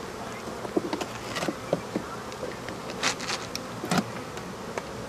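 A swarm of Africanized honey bees buzzing steadily around an opened nest cavity in a house wall, with scattered knocks and scrapes, loudest around three to four seconds in, as the comb is dug out by hand.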